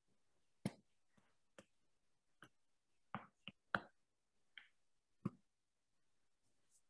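Faint, irregular taps and clicks, about eight over several seconds, from a fingertip writing on a touchscreen.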